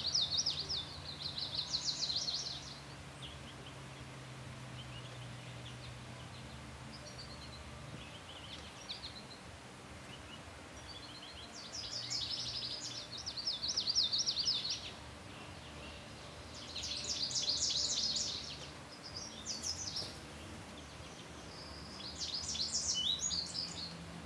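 American robin nestlings begging to be fed: bursts of rapid, high-pitched chirping, each a second or two long, coming several times.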